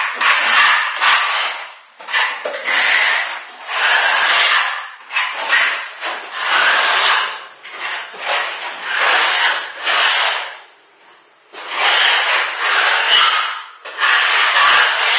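Trowel scraping across the floor, spreading parquet adhesive in repeated strokes about a second long with short gaps between, and one longer pause about three quarters of the way through.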